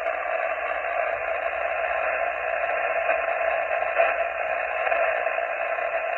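Steady hiss of band noise from an HF amateur radio transceiver's speaker on single sideband, heard while listening for replies to a CQ call. The hiss is thin, cut off above and below like a voice channel, with no station coming through.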